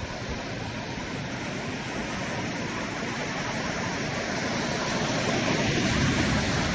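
Ocean surf washing in: a steady rush of noise that slowly swells louder toward the end.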